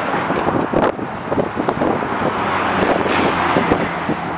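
Strong gusty wind buffeting the microphone, over a steady low engine rumble.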